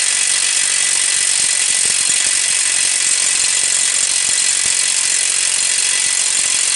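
Cordless impact wrench hammering without a break on a tight front axle nut, a steady high-pitched buzz.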